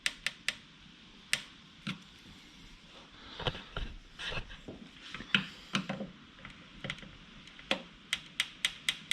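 Hand tightening of a motorcycle tail light's mounting screws: scattered sharp clicks and short scrapes of tool on screw and plastic housing, with a quicker run of ticks near the end as the snug screws are snugged down.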